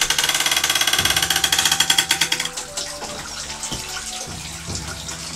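Wooden lever press squeezing malt-sugar liquid out of mashed glutinous rice, with the liquid running into the barrel below: a fast, even pulsing noise that fades down after about two and a half seconds.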